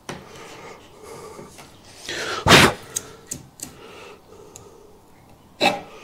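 Hand chisel paring wood out of a door-hinge rebate: quiet scraping with a few small clicks, broken by a loud short hissing burst about two and a half seconds in and a shorter one near the end.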